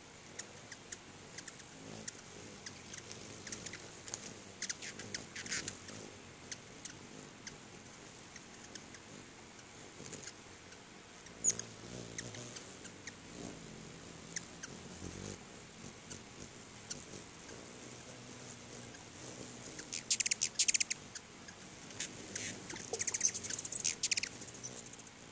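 Ruby-throated hummingbirds giving rapid, high-pitched chipping chatter in short bursts, loudest about 20 seconds in and again near the end, the squabbling calls they make while jostling and chasing at the feeders.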